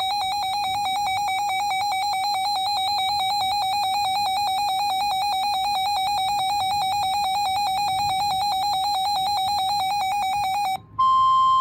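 Emergency alert attention tone: a loud, buzzy electronic alarm tone that warbles rapidly and holds steady for about eleven seconds, announcing a new severe thunderstorm warning broadcast. It cuts off near the end, and after a brief gap a steady, slightly higher single tone begins.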